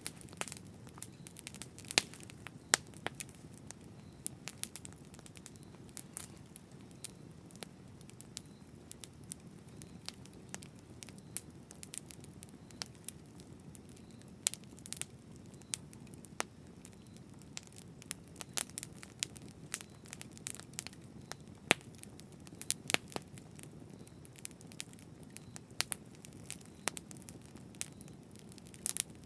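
Campfire burning with a steady low rush and frequent irregular crackles and pops, a few of them sharp and loud.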